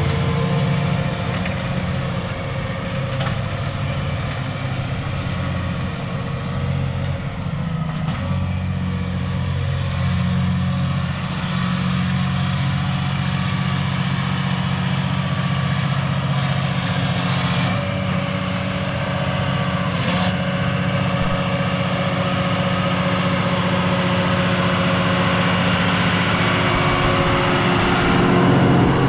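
John Deere 7R 210 tractor's six-cylinder diesel engine running steadily under load while pulling a subsoiler through the ground. It gets louder near the end.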